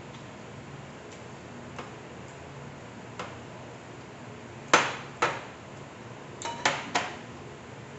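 Ceramic plates knocking on the dining table and against each other as a plate is moved and set down: two sharp clinks a little past halfway, then a quick cluster of three more near the end, with a few faint tableware clicks before them.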